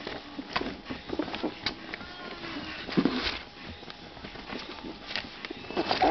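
Puppies play-fighting in a box: irregular scratching and bumping of paws against the box, with a few short puppy yelps, the loudest near the end.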